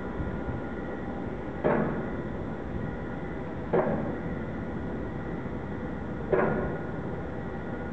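Lock machinery at a steel lock gate: a steady hum with several faint fixed tones, broken by three sharp clanks about two seconds apart, each ringing out for about half a second.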